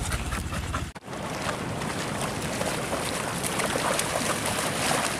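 Dogs and people wading through shallow water, splashing and sloshing, over a steady rushing background of water and wind. A brief dropout about a second in.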